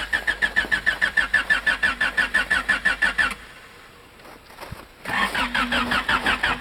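Starter cranking the 1988 Honda Accord's cold four-cylinder engine in two tries, each a fast, even chug of about eight compression pulses a second, the first lasting about three seconds and the second starting about five seconds in. The engine does not catch in either try: a hard cold start in winter.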